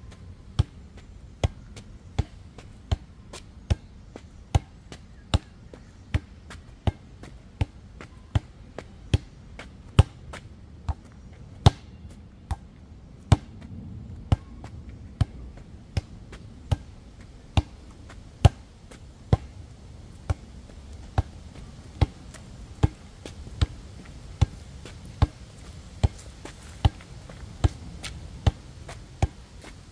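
A basketball struck and bounced by hand in a steady rhythm, each contact a sharp slap, about four every three seconds, a few of them much louder than the rest.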